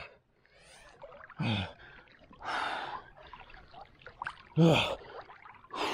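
A man gasping and huffing sharp breaths from the shock of freezing lake water, a burst every second or two, some with a falling voiced groan, with water sloshing faintly around him.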